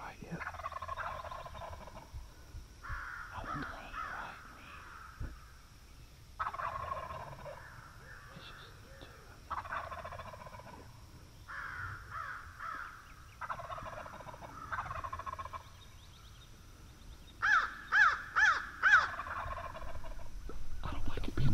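Osceola wild turkeys gobbling in repeated bouts of a second or two each. Near the end come four loud, sharp call notes in quick succession.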